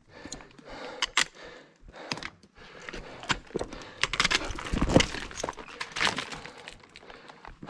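A fixed iron chain handrail rattling and clanking as it is gripped and pulled. A trekking pole and boots knock and scrape on rock and loose gravel, busiest about four to six seconds in.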